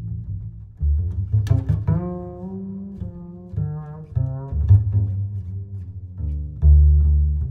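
Background music: deep sustained bass notes under a higher melody of changing pitched notes.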